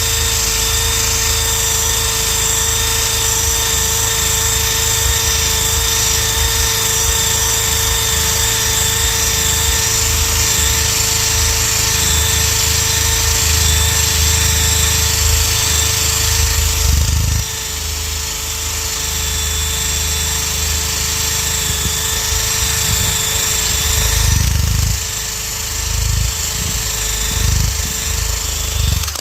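Handheld power tool motor running with a steady whine while stripping adhesive letters and glue off a boat hull. The pitch stays steady, but the sound drops in level about two-thirds of the way through and varies near the end as the load on the tool changes, then cuts off abruptly.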